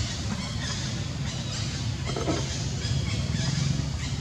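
A steady low motor hum, with faint short high squeals from a baby long-tailed macaque over it and a brief louder burst about two seconds in.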